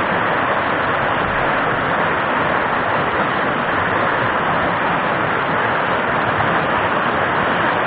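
Mountain-stream rapids rushing over and around a boulder: a steady, loud rush of white water.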